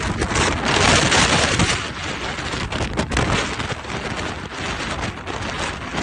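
Storm-force wind buffeting the microphone: a loud, dense rush broken by many crackling knocks.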